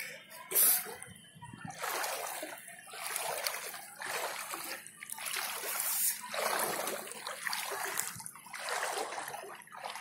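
Feet wading through shin-deep floodwater, each step a slosh and splash, roughly one every second or two, with a sharper, louder splash under a second in.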